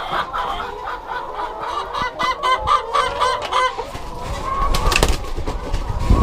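A flock of laying hens clucking in quick, overlapping calls, with a sharp knock about five seconds in and low thumps near the end.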